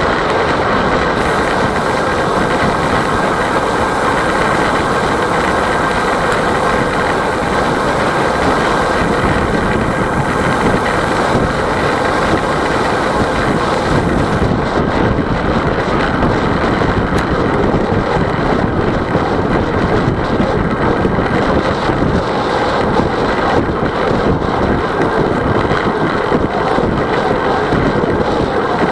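Steady wind rush buffeting the microphone of a camera mounted on a moving road bicycle, mixed with the rolling hum of tyres on asphalt.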